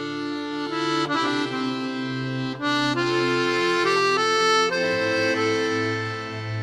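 Instrumental music: sustained reedy chords over a steady low drone, with the notes changing every half second or so.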